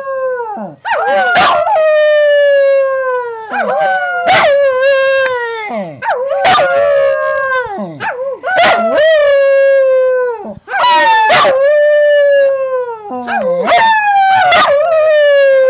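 Small white curly-coated dog howling: about six long howls, each sliding slowly down in pitch and dropping off sharply at the end, with short breaths between them.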